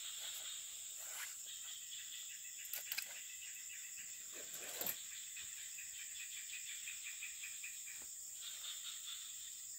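Steady high-pitched insect chorus with a rapid pulsing chirp beneath it, and two short clicks or rustles, one about three seconds in and one about five seconds in.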